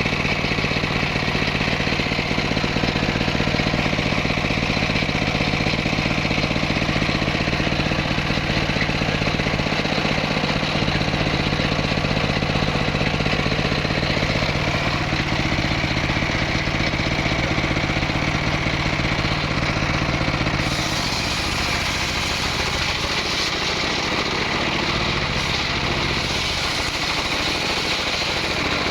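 Small petrol engine of a wood-cutting machine running steadily. About 21 seconds in its tone changes, it gets slightly quieter, and a high hiss joins it.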